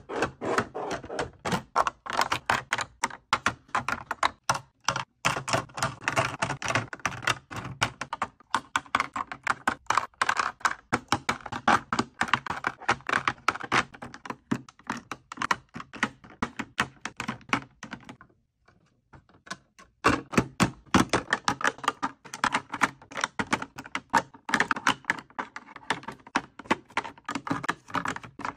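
Rapid clacking and tapping of hard plastic: clear acrylic drawer organizer trays and lip gloss and lip balm tubes being set down and arranged in a drawer, with a pause of about two seconds two-thirds of the way through.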